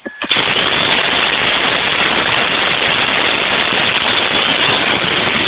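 Power drill running continuously: a harsh, steady noise with no clear pitch that starts abruptly just after the beginning.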